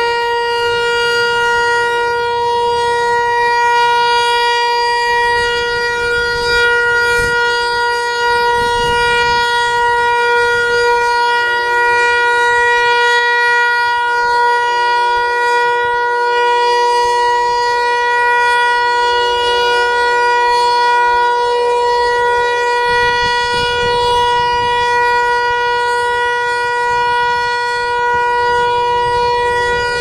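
Federal Signal Eclipse 8 electronic tornado siren sounding its alert signal: one steady, loud, unwavering tone held throughout.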